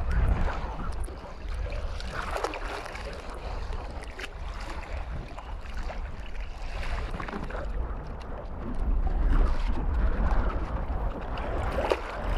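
Wind buffeting the microphone with a heavy rumble, over small waves lapping in shallow lake water; the gusts are strongest about nine to ten seconds in.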